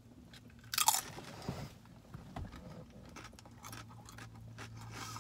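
A bite into crunchy food, with a loud crunch about a second in, then steady close-up crunchy chewing.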